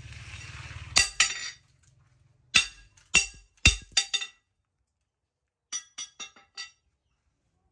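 Rusty steel leaf spring knocked against a metal anvil stake: sharp metallic clinks that ring briefly. First a close pair, then four strikes in quick succession, and later five lighter, faster taps.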